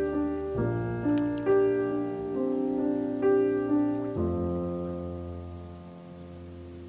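Background piano music: single notes and chords struck one after another, each fading. About four seconds in a low chord is struck and left to die away slowly.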